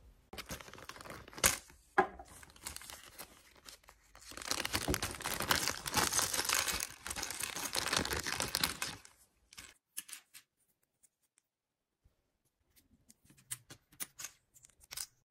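A small plastic zip-lock bag crinkling as it is handled and opened, densest for about five seconds in the middle, with a couple of sharp knocks before it. Then scattered light clicks of plastic press-on nails being picked over on a tabletop.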